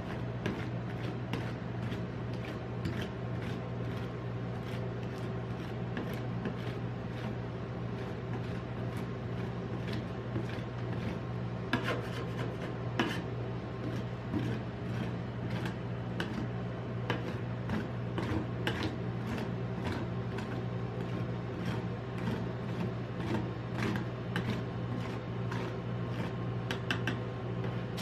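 Metal spatulas scraping and tapping on the frozen steel plate of a rolled ice cream counter, with many quick sharp taps over a steady low hum.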